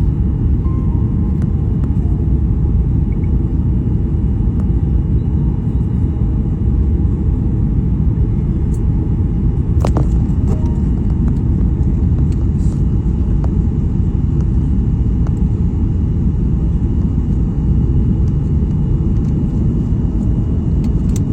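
Airliner cabin noise during landing: a steady, loud low rumble, with a brief click about ten seconds in.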